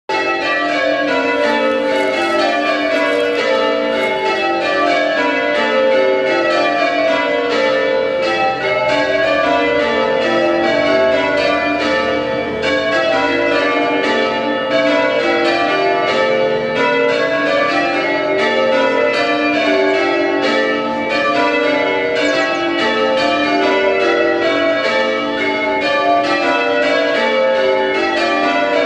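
Church tower bells of St Giles Church, Wrexham, change ringing: a ring of bells struck one after another in a continuous run of rows, the notes stepping down through the ring and the order shifting from row to row.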